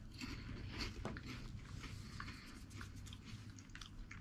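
Dry, crunchy corn puff snack being chewed: faint, irregular crunches.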